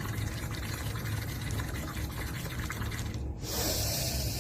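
Air blown through a drinking straw into a glass of water, bubbling steadily. The bubbling stops about three seconds in, and a short breathy hiss follows near the end.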